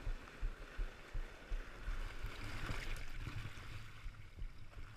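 Broken wave's whitewater rushing and fizzing over and around a bodyboard as it rides the wave in, heard at water level with an uneven low rumble from water buffeting the microphone.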